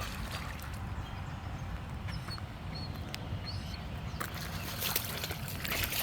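Outdoor ambience: a steady low rumble, with a few faint short chirps about two to three seconds in and a hiss that grows louder near the end.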